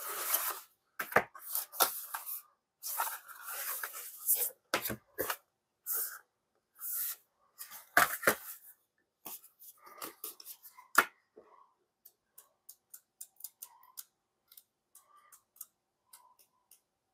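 Plastic disc case and paper inserts being handled: clacks, knocks and rustling of paper as the case is opened and a fold-out insert is slid out and laid down. After about twelve seconds this gives way to a quick run of light paper ticks as the pages of a booklet are flipped through.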